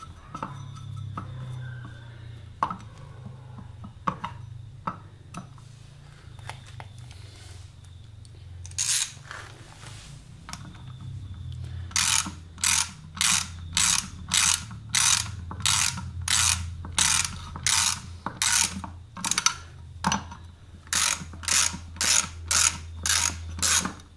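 Socket ratchet clicking in a steady rhythm, about two strokes a second, from about halfway in, as the rear sprocket nuts are run down onto the wheel hub until they first go firm. Before that, only light metal clicks of the nuts and tool being handled.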